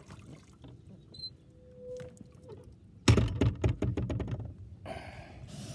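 A sailboat's stern boarding ladder being raised out of the water: about three seconds in, a quick clatter of rattling clicks and knocks lasting under two seconds.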